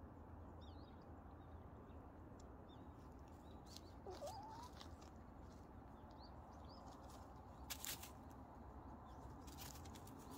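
Quiet outdoor ambience: faint high chirps of small birds, a few light crackles of dry leaves under cats' paws, and one short rising call about four seconds in.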